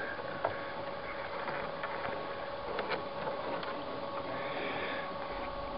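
A canoe being paddled through tall grass and reeds: stems swishing along the hull, with a few faint knocks, over a steady hum.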